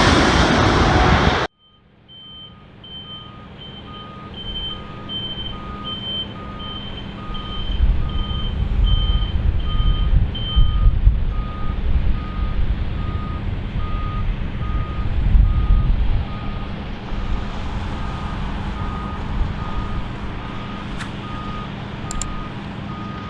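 Loud rushing noise that cuts off abruptly about a second and a half in. Then two reversing alarms on airport ground vehicles beep at different pitches, each about one and a half times a second, over the low rumble of a running diesel engine. The higher-pitched alarm stops about ten seconds in.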